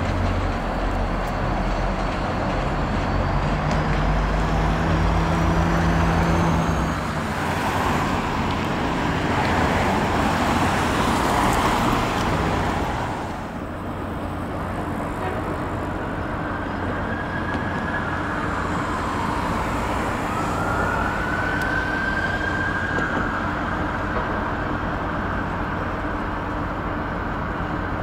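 MBTA commuter train hauled by a diesel locomotive: steady engine drone and wheel rumble on the rails, swelling as the train passes about halfway through. After that the sound drops, and a high tone rises and falls a few times.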